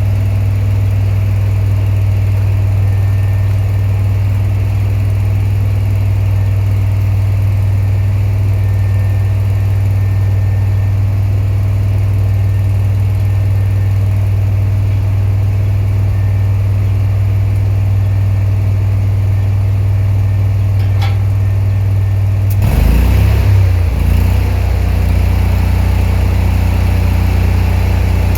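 An engine running steadily at idle. About 23 seconds in, its speed changes: the note wavers, then settles into a busier sound with more hiss.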